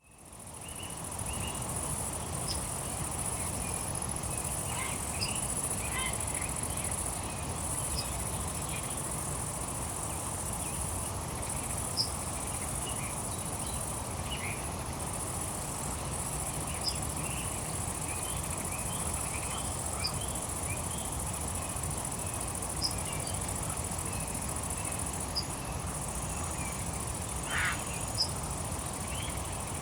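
Riverside nature ambience: a steady high insect drone, with scattered short bird chirps and calls over a low, even rush. It fades in over the first second.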